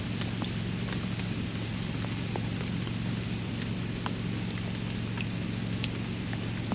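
Steady rain falling around a backyard pond, a continuous hiss with scattered individual drops ticking. A steady low hum runs underneath.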